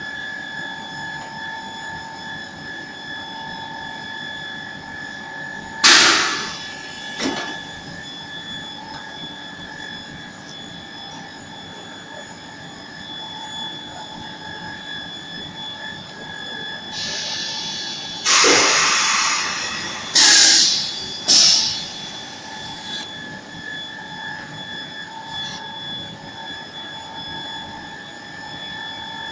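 A large 500 x 1200 press machine running with a steady whine, broken by loud, sudden hisses: one about six seconds in with a smaller one just after, then three in quick succession about two-thirds of the way through, each starting abruptly and tailing off.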